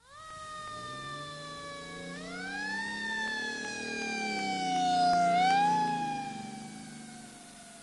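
Fire engine siren wailing, its pitch rising and then slowly sinking, with the rise coming about three times, over a low engine rumble. It grows louder toward the middle and then fades, as the truck drives past.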